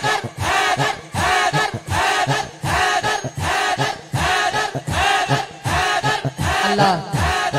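A crowd of men chanting a short phrase in unison, over and over, in a steady rhythm of about two chants a second.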